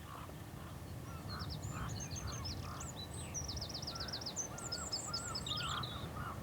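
Several birds calling and singing together: quick high chirps and rapid trills over a run of repeated lower call notes, with a low rumble underneath.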